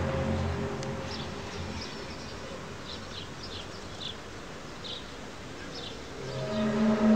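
The unidentified low droning noise, a groan of several steady horn-like tones, fades out over the first second or two and swells back in about six seconds in. In the quieter stretch between, a string of short high chirps.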